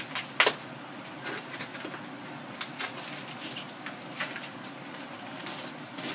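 Scattered light clicks and knocks of hands handling frozen chicken and its packaging on a kitchen counter, the sharpest about half a second in, over a faint low steady hum.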